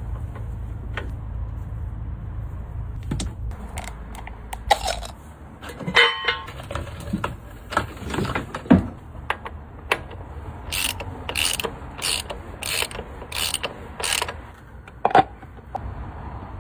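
Ratchet wrench at work with scattered tool clicks, ending in a run of about six evenly spaced ratchet strokes; a low steady hum fades out about five seconds in.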